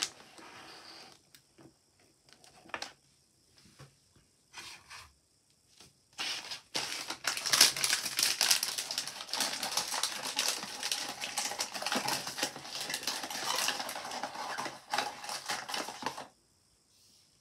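A few light clicks and taps, then about ten seconds of dense crinkling and rattling as blind-box packaging is handled; it stops suddenly near the end.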